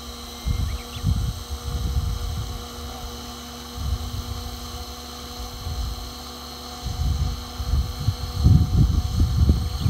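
Goblin radio-controlled helicopter running with a steady whine of several even tones. Irregular low gusts of air buffet the microphone, strongest in the last three seconds.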